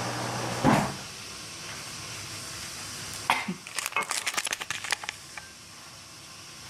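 A steady hum cuts off with a thump, then a quick run of light clicks and clatter, like small hard objects being handled in a kitchen.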